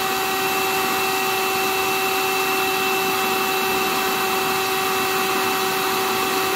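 Shark cordless hand vacuum running steadily: the suction motor's whine, several steady tones over the rush of air. Its brush roll does not spin because the drive belt has slipped off.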